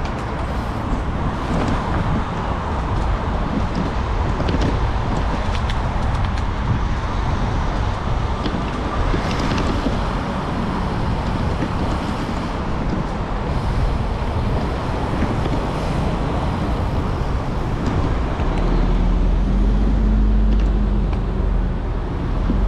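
Steady road traffic noise. A deeper engine rumble swells in near the end.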